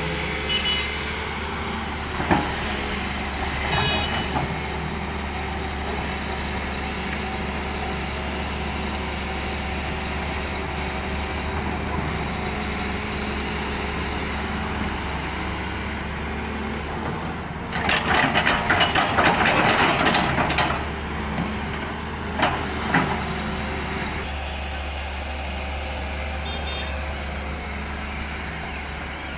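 Heavy diesel engine of a SANY SY220C-9 crawler excavator running steadily under work, with a few short knocks. Past the middle, a louder rattling clatter lasts about two seconds.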